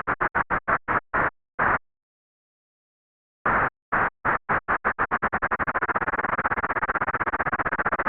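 Bursts of white-noise hiss added to make a sub-audible sine wave of 0.1 to 8 Hz audible, pulsing with its peaks. The pulses slow and stop about two seconds in. After a gap of about a second and a half they resume and speed up into a fast, steady rattle.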